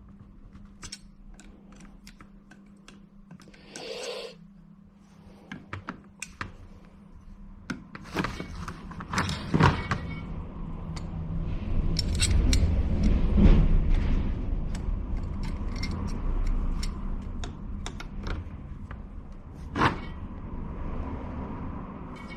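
Scattered clicks, taps and metallic knocks of wiper linkage parts being handled and pushed together as a linkage arm is pressed onto its ball joint. A low rumble runs through the middle of the stretch.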